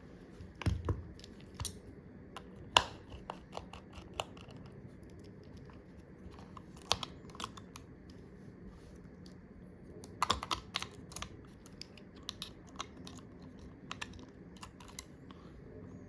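Small repair tools and iPhone XR parts clicking and tapping irregularly as the phone is reassembled, with a busy cluster of clicks about ten seconds in, over a faint steady hum.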